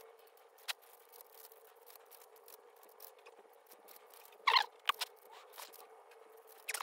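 A YJ MGC 5x5 magnetic speedcube being turned by hand: scattered faint clicks of its layers turning, with a louder squeaky scrape of the plastic layers about four and a half seconds in.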